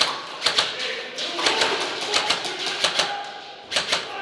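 Airsoft guns firing in a close-quarters game: irregular sharp snaps, some in quick pairs, each followed by a short ringing echo.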